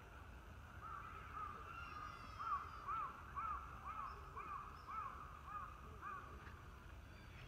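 Young sika deer calling: a run of about ten short, high, squeaky calls, each rising and falling in pitch, roughly two a second, stopping about six seconds in.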